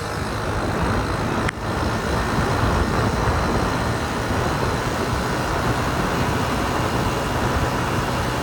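Honda Cub C70's small single-cylinder four-stroke engine running steadily, with a brief drop in the sound about one and a half seconds in.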